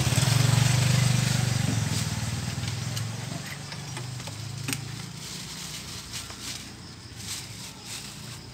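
Deep bass rumble from subwoofer speaker cabinets during a speaker check, loudest for the first two seconds and then slowly fading away. A few faint clicks follow.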